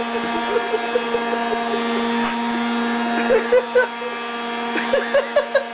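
Vacuum cleaner motor running with a steady, even hum.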